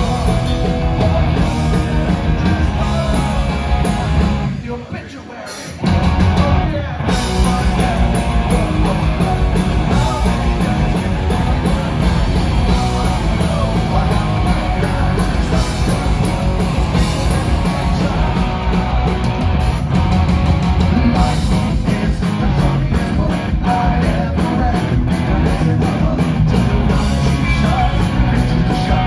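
Punk rock band playing live: electric guitars, bass and drums with a lead singer. About four and a half seconds in, the band drops out for about a second, then comes back in at full volume.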